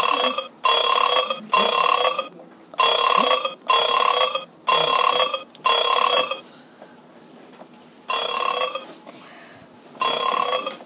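A string of short burp sounds, each much like the last: a quick run of about one a second, then after a pause two more spaced about two seconds apart.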